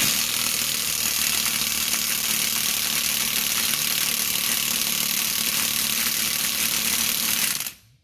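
Loud, steady machine noise, mostly a high hiss-like rush with a faint low hum beneath, that starts abruptly and cuts off suddenly near the end.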